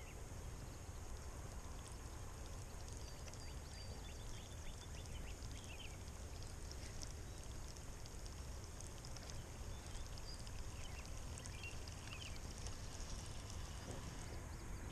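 Faint outdoor ambience by a pond: a low steady rumble, a few scattered bird chirps and a steady high insect drone.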